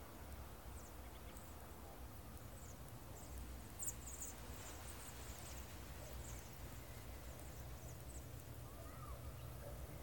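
A flock of birds flying over, giving many short high-pitched calls that are thickest around four to five seconds in, over a low steady rumble.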